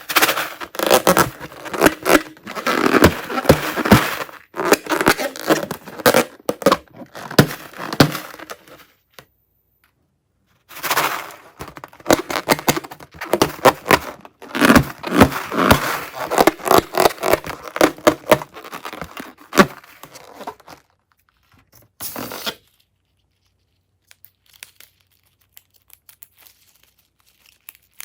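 Slime being squeezed, stretched and folded by hand, giving dense sticky crackling and tearing sounds in two long spells. There is a brief burst a couple of seconds after the second spell, then only faint scattered clicks near the end.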